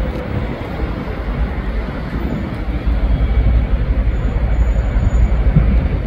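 Steady low outdoor rumble of urban background noise, growing louder about three seconds in, with a faint falling tone that fades just after the start.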